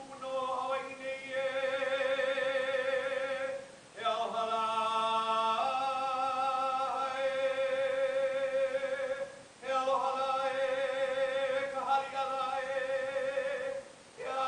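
A woman's unaccompanied solo chant in Hawaiian style (oli): long held notes with strong wavering vibrato, in three long phrases broken by short breaths.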